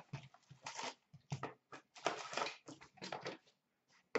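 Sealed trading card packs and their box handled: irregular crinkling and rustling of wrappers and cardboard as packs are pulled out and stacked.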